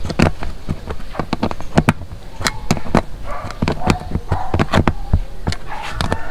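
Sharp metallic clicks and taps, several a second at uneven spacing, from a steel socket tool turning a 10 mm bolt that holds a motorcycle seat down.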